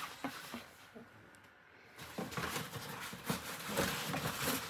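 Dachshund rummaging in a cardboard box of brown packing paper: irregular crinkling and scuffing of paper and cardboard, picking up about two seconds in.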